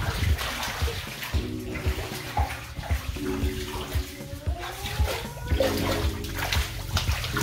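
Background music with a steady beat and held chords, over a continuous watery hiss.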